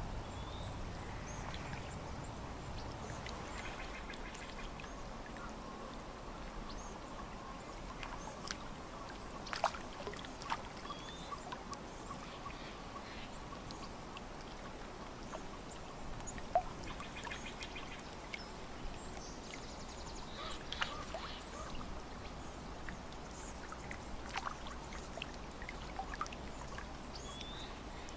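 Lakeside ambience: water lapping at the shore with small splashes and clicks, and birds calling now and then with short high calls.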